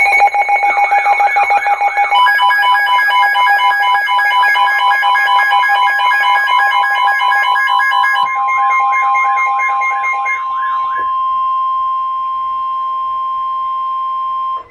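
Several electronic weather alert alarms sounding together for a severe thunderstorm warning: rapid beeping tones and a warbling siren-like tone. These stop between about eight and eleven seconds in, leaving one steady long tone, the NOAA Weather Radio warning alarm tone, which cuts off abruptly at the end.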